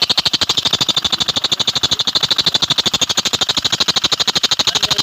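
Maruti Suzuki Swift Dzire engine idling with a rapid, even ticking from its main (crankshaft) pulley, about fifteen ticks a second: the sign of the rubber inside the pulley having torn, which calls for replacing the whole pulley.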